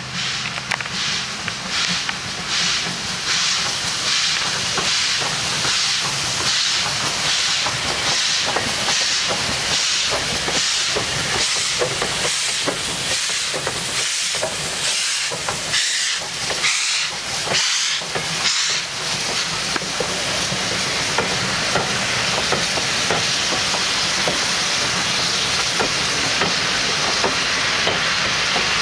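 GWR 2800-class 2-8-0 steam locomotive No. 2857 working past, its exhaust chuffing in a steady rhythm. About two-thirds of the way in the beats give way to a steady hiss of steam.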